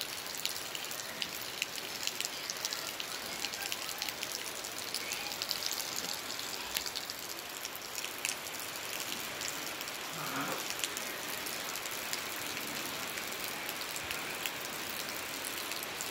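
Rain falling steadily: a continuous hiss dotted with many small drop ticks.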